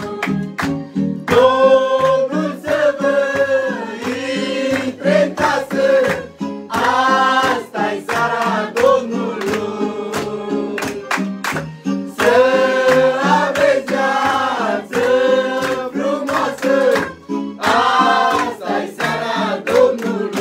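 A mixed group of men and women singing a Romanian Christmas carol (colindă) together, over an instrumental accompaniment with a steady beat.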